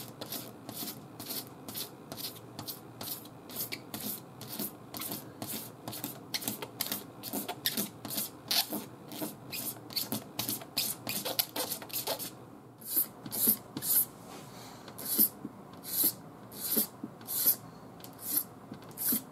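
Razor blade held perpendicular and shaving down a dried paint run on a car body panel: a rapid run of short, raspy scraping strokes, about three a second, that slow to about two a second for the last third.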